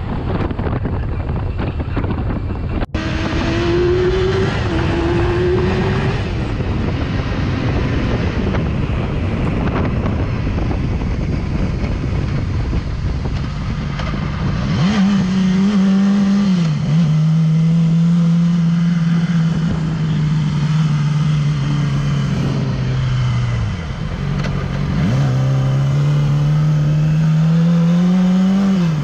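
Motorcycle ridden at highway speed, heavy wind noise over the engine. In the second half the engine note comes through clearly: it drops once, dips again, then climbs steadily under acceleration for the last few seconds.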